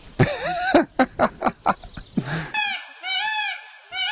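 Peafowl calling loudly: a quick run of short, harsh calls, then two longer arching calls in the second half.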